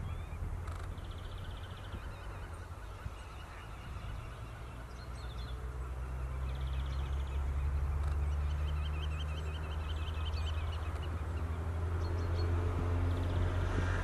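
Wetland birds calling: repeated chirps and short trills, with a run of lower repeated calls in the first couple of seconds. A low, steady drone comes in about four seconds in and grows louder.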